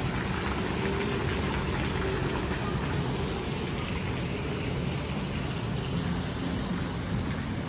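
Pool fountain jets splashing steadily into the water: an even, continuous patter and hiss of falling water.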